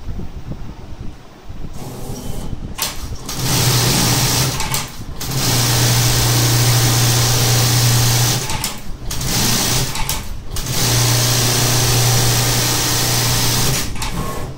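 Juki AMS computer-controlled pattern sewing machine stitching a design through leather. It starts about three and a half seconds in and runs fast with a steady hum, in stretches of a few seconds broken by several short stops.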